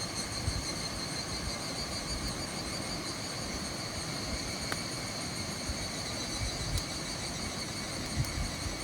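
Insects buzzing steadily in a high-pitched chorus, over a low, uneven rumble.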